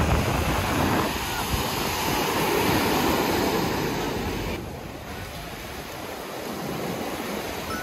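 Ocean surf breaking and washing onto a sandy beach, a steady rushing noise, with wind buffeting the microphone in the first half. The sound drops abruptly a little over halfway through, where the shot changes.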